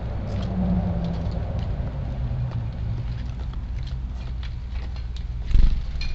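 Strong wind buffeting the microphone, a steady low rumble, with scattered faint quick ticks of sparrows pecking and hopping at the feeding spot. A single loud thump comes near the end.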